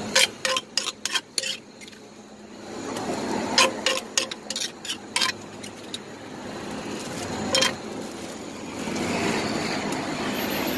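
Metal spoon scraping and clinking against the inside of a clay som tam mortar as papaya salad is scooped out into a plastic bag, with a quick run of sharp clinks at the start, another cluster about four seconds in, and a single clink near eight seconds.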